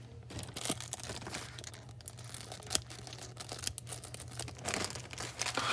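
A toy wrapper being torn open by hand, with irregular crinkling and crackling.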